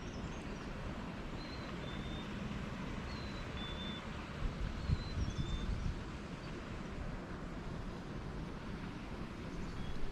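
Steady low rumble of distant highway traffic, with a small bird's two-note whistle, high then a little lower, repeated three times.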